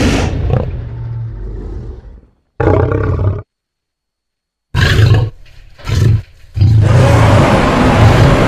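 A run of creature roar sound effects separated by cut-off silences. A long roar fades away, then comes one short roar, two brief bursts, and a loud sustained roar that starts about two-thirds of the way through.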